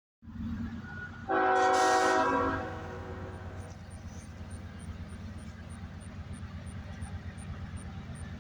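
CSX locomotive's air horn sounding one loud blast, a chord of several tones at once, a little over a second long, starting just over a second in, over the steady low rumble of the train.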